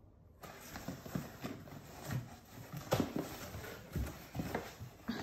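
Cardboard shipping box being handled and turned over, with irregular light knocks, taps and scrapes of cardboard.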